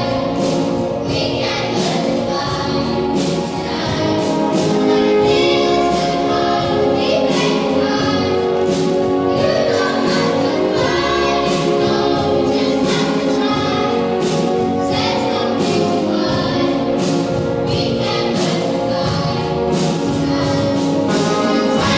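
A large choir of children and young people singing with a symphony orchestra, hand drums beating a regular rhythm underneath.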